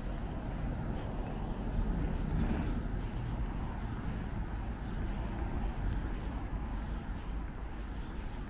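Steady low rumble of street traffic, swelling a little between about two and three seconds in.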